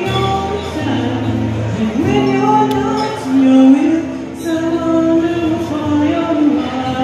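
A woman singing with her own acoustic guitar accompaniment, the vocal holding several long notes.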